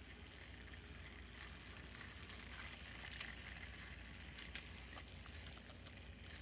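Plastic toy train coaches handled by hand: a few faint light clicks, about three seconds in and again a second and a half later, over a low steady hum.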